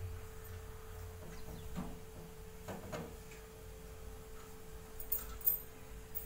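Hands pinching and pressing a potato-stuffed paratha dough ball closed, giving faint soft handling sounds and a few light clicks, the sharpest about five and a half seconds in, over a steady faint hum.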